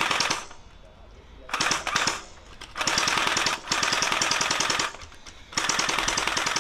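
A toy blaster firing in rapid full-auto bursts: about five bursts of fast, evenly spaced shots, each lasting around a second, with short pauses between them.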